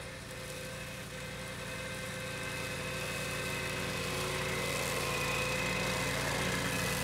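BCS Model 722 two-wheel tractor running steadily while mowing tall grass with its brush mower attachment, the engine growing louder as the machine comes closer.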